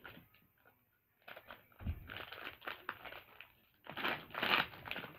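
A plastic Shopkins packet crinkling and tearing as it is pulled open by hand. There is a short low thump about two seconds in, and the loudest crinkling comes about four seconds in.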